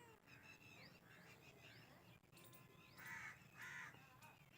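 Faint outdoor bird calls: light chirping throughout, and two short harsh calls about three seconds in.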